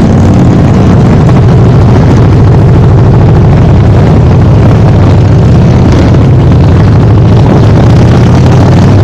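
Motorcycle engine running loud and steady at an even pitch, close to the microphone.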